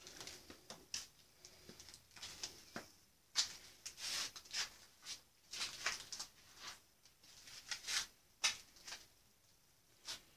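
Irregular soft scuffs, crunches and rustles from footsteps on a littered floor and the camera being handled, with no steady sound underneath.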